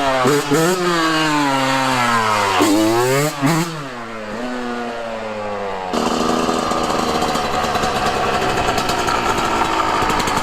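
Yamaha YZ125 two-stroke single-cylinder dirt bike, fitted with a new stock header and silencer, revving up and dropping back several times. About six seconds in the sound changes abruptly to a louder, steady, buzzy high-rev note.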